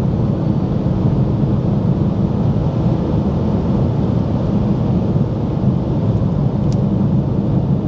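Cabin noise inside a BMW i3 at highway speed: a steady low rumble of road and tyre noise with wind, held through a full-throttle run to about 115 km/h.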